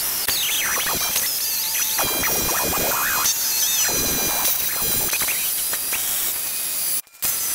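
Reciprocating saw (Sawzall) running with a long blade, cutting through treated pine slats: a steady saw noise with squealing tones. It drops out briefly near the end.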